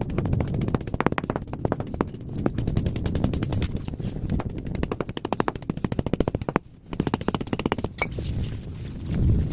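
Rapid crackling runs of sharp clicks as the thin aluminium fins of an air-conditioner radiator are broken and stripped off its copper tubes. There is a short break about two-thirds of the way through.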